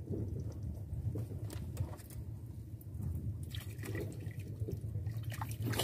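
Water splashing and dripping as a cast fishing rig with its bait lands in the water close by, over a steady low hum.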